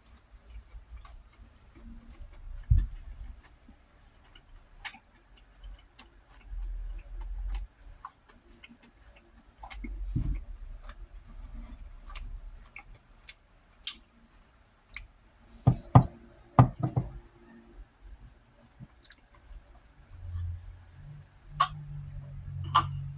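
Close-up eating sounds: chewing with scattered small clicks and knocks, a cluster of louder knocks about sixteen seconds in, and a low rumble near the end.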